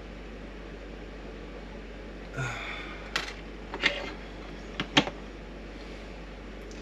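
Sharp clicks and taps from small tools and parts being handled, four or five of them a little past halfway, over a steady low hiss. A brief voice sound comes shortly before the clicks.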